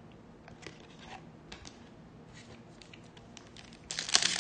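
Trading cards being handled, with scattered faint clicks. Near the end comes a loud crinkling of a card-pack wrapper.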